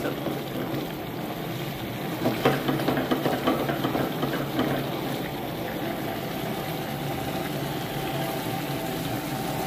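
Chicken fry bubbling and sizzling in its gravy in a pan over a gas burner, a steady frying hiss with a few louder pops, over a constant low hum.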